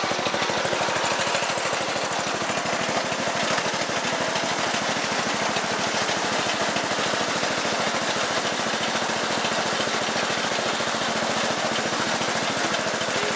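Riding lawn tractor's engine running steadily as the tractor drives across the lawn, a fast, even stream of firing pulses with no change in speed.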